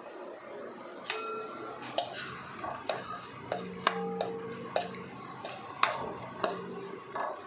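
A steel ladle stirring cashews, almonds and pistachios roasting in ghee in a non-stick kadhai: repeated knocks and scrapes of metal on the pan, starting about a second in, some ringing briefly, over a light sizzle.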